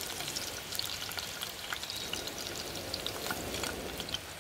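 Chopped garlic frying in oil in a pan, a steady sizzle peppered with many small crackles as the garlic browns.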